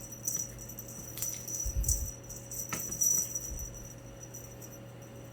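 A cat teaser wand's toy being jiggled and shaken, giving an irregular high jingling rattle with a steady ringing note under it, and a dull bump about two seconds in.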